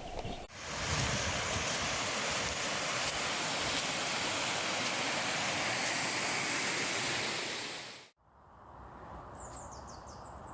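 Steady rush of a waterfall, which starts and stops abruptly with cuts in the sound track, stopping about eight seconds in. After it come quieter open-air background noise and a few short, high bird chirps near the end.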